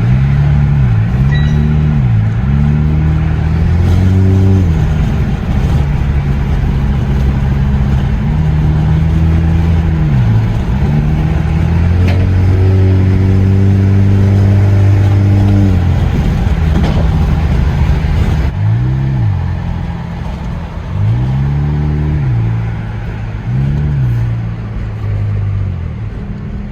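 Muffler-deleted 2011 Hyundai Sonata 2.0T's turbocharged four-cylinder running loud through its open exhaust, its revs climbing and dropping back again and again while driving. Near the middle it holds a steadier, higher pitch for a few seconds.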